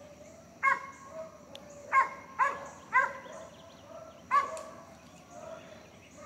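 Young cur dog barking treed up a tree at a squirrel: five sharp barks, irregularly spaced, in the first half.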